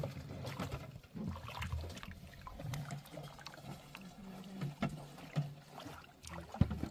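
Water sloshing and splashing in a metal water trough as a small child paddles his hands in it, in short, irregular splashes.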